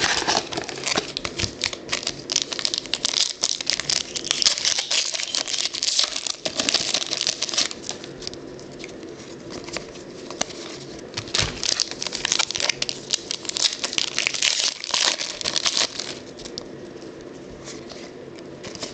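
Football trading cards and their pack wrappers being handled: crinkling of the wrappers and a dense, irregular rustle and flick of cards being flipped through.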